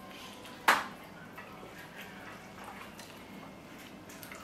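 Close-up eating sounds: one sharp click about a second in, then faint wet chewing and small mouth clicks.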